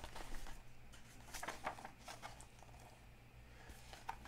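Pages of a glossy softcover magazine being opened and turned by hand: faint, brief paper rustles, a few of them, near the start, about a second and a half in, and near the end.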